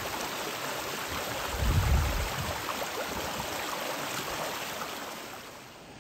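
Shallow rocky mountain creek running over stones, a steady rush and burble of water, with a low thump about two seconds in.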